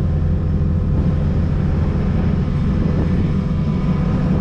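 Skid-steer engine idling steadily, a constant low hum.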